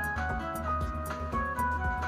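Lucky Lady's Charm video slot machine playing its electronic jingle while the reels spin and stop during free games: a short tune of bright synthesized notes over a low hum, with quick clicks as the reels land.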